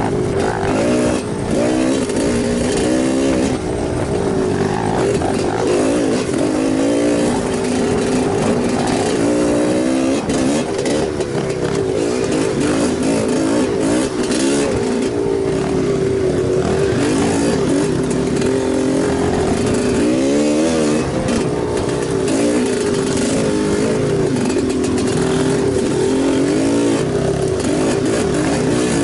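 Enduro motorcycle engine running under changing throttle, its pitch rising and falling over and over, with a few steadier stretches.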